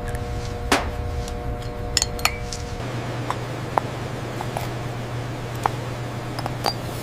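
Steady factory machinery hum with a whine that cuts off about three seconds in, and half a dozen scattered sharp clinks.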